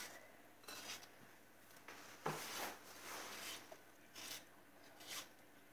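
Handheld plastic vegetable sharpener shaving a peeled cucumber as it is twisted through the blade: a series of faint, short scraping strokes.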